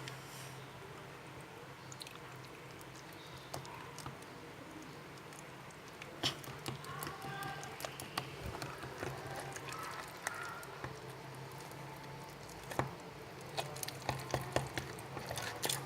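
Slime being stirred with a stirrer in its container just after activator is added: soft squishing and small clicks against the container. These come more often from about six seconds in, over a low steady hum.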